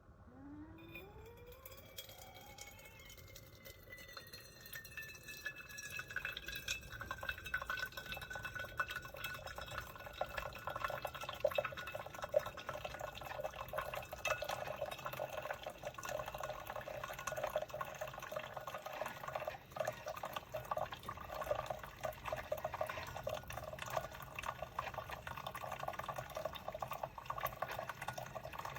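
Cuisinart SS-16 coffee maker brewing: liquid streaming and dripping into a container. It starts about a second in with a gliding pitch, grows louder over the first several seconds, then runs steadily with small spattering crackles.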